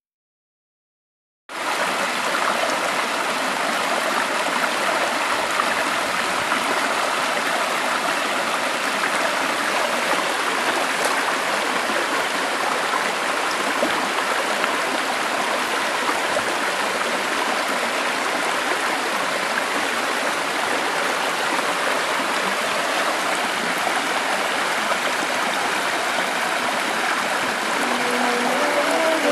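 Steady rushing of a stream flowing over rocks, starting suddenly about a second and a half in.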